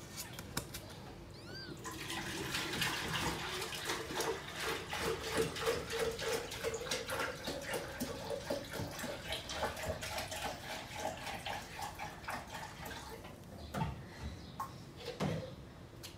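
Kittens nursing on their mother cat: a long run of soft, wet suckling clicks and smacks that fades out about three-quarters of the way through. One short, high kitten mew comes near the start.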